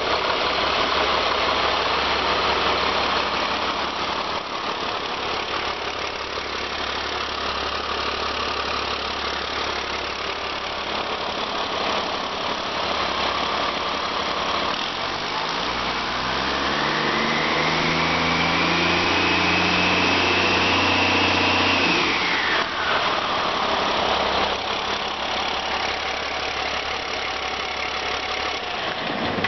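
Caterpillar C7 ACERT turbocharged inline-six diesel running at idle. About halfway through it is revved: the engine note climbs and a high turbocharger whine rises and holds for several seconds, then both drop away quickly as it falls back to idle.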